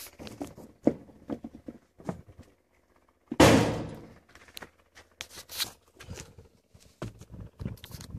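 Knocks, scuffs and rubs from a phone being handled while a man clambers up onto a concrete wall, with one loud scraping thump about three and a half seconds in.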